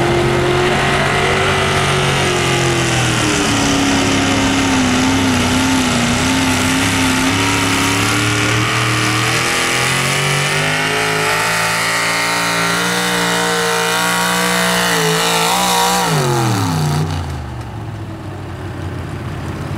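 Super Stock two-wheel-drive pulling truck, a late-1970s Ford pickup, running at full throttle as it drags a weight-transfer sled, its engine speed rising and falling through the pull. Near the end the pitch drops steeply and it gets quieter as the engine winds down.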